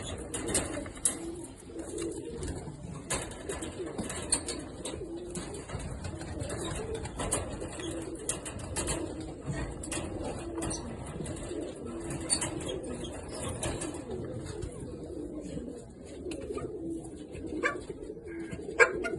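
Domestic pigeons cooing, low coos overlapping almost without a break, with scattered sharp clicks and taps.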